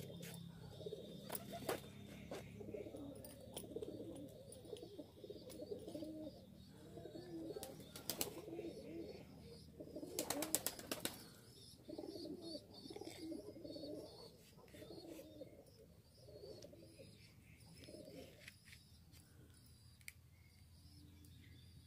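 Pigeons cooing over and over in low, wavering calls that die away near the end, with a few sharp clicks or knocks, the loudest of them about ten to eleven seconds in.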